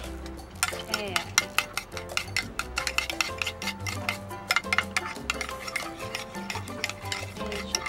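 Metal spoon whisking egg white and instant coffee in a plastic bowl, clinking rapidly and irregularly against the sides, as the coffee is stirred until it dissolves. Background music plays underneath.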